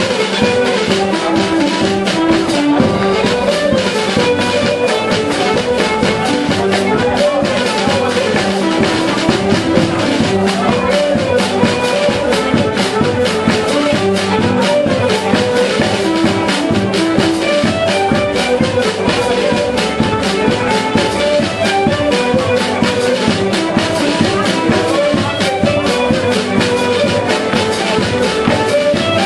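Irish ceili dance music for a reel, played at a brisk, steady tempo with a drum beat.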